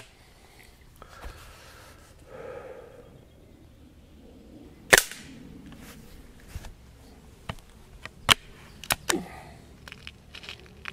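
BSA Lightning XL SE gas-ram break-barrel air rifle firing once about five seconds in, a single sharp crack. A few seconds later comes a quick series of metallic clicks as the barrel is broken open to cock the gas ram for the next shot.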